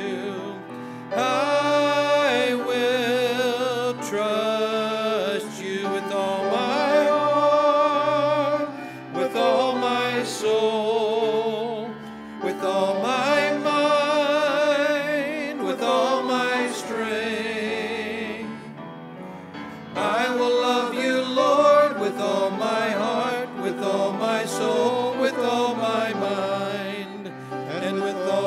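Small group of worship singers singing a song with piano accompaniment, the held notes wavering with vibrato.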